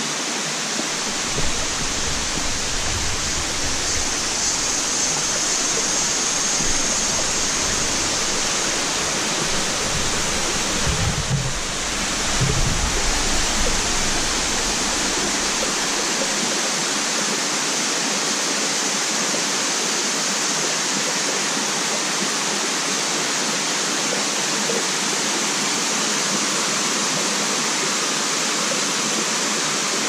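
Tall waterfall and the rocky stream below it rushing steadily. A low rumble on the microphone comes and goes through the first half.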